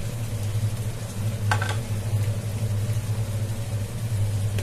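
Sliced onions frying in oil in a pot, a soft sizzle with ginger paste just spooned in, over a steady low hum. One short tap, likely the spoon against the pot, comes about one and a half seconds in.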